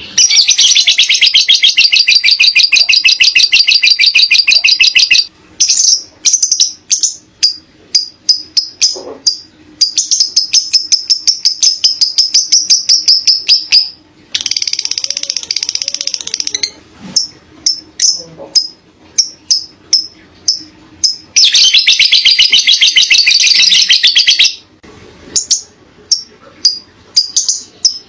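Lovebird singing its ngekek: long, rapid, rattling chatter-trills of three to five seconds each, broken up by strings of short, sharp chirps.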